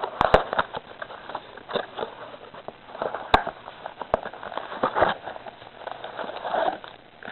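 Trading card packaging being opened by hand: irregular crinkling and tearing of plastic wrapper with scattered sharp clicks and taps, the sharpest about three seconds in.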